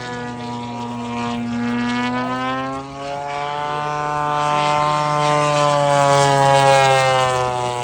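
Radio-controlled model airplane's propeller engine running in flight, its note swelling and bending gently in pitch as it passes, loudest about six seconds in.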